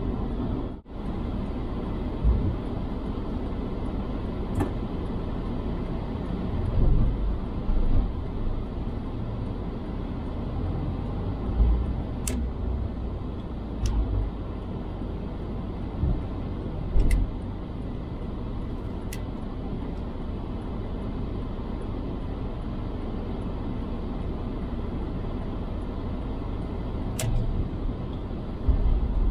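Car cabin noise while driving: a steady low engine and road rumble, broken by a few louder low thumps and a handful of faint scattered clicks.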